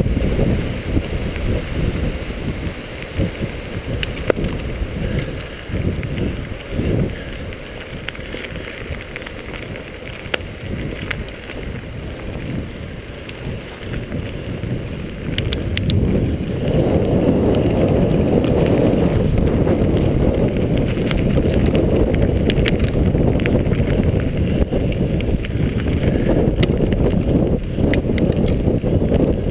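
Mountain bike rolling fast down a dirt track: tyre rumble and wind buffeting the camera's microphone, with scattered rattles and clicks from the bike jolting over bumps. The rumble grows louder a little past halfway.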